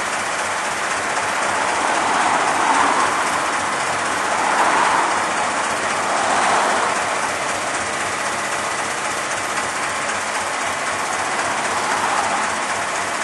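Road traffic passing, several vehicles swelling by one after another, over a steady noise.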